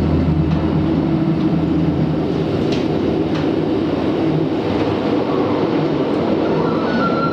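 Rhaetian Railway narrow-gauge train running on the rails: a steady rumbling noise with two short clicks about three seconds in and a thin high squeal near the end.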